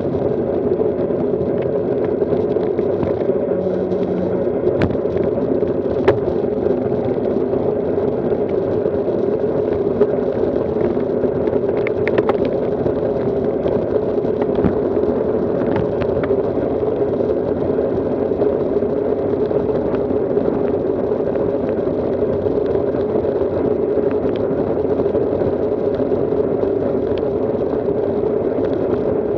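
Steady muffled rushing of wind and road noise on a camera riding along with road cyclists at speed, with a few faint clicks from the bike now and then.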